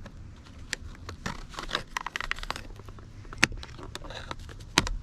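Plastic seat trim cover being pried off by hand: scraping and crackling of the plastic, with several sharp clicks as its retaining tabs give way, the loudest near the end.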